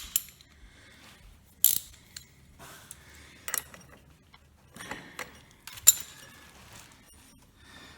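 Small metal scooter drive parts being handled and fitted: a few sharp metallic clicks and knocks, one every second or two, with light scraping between them.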